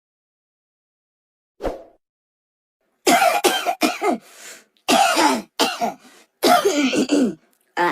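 High, sped-up chipmunk-style coughing: one short cough about a second and a half in, then a run of loud coughs from about three seconds in, each dropping in pitch.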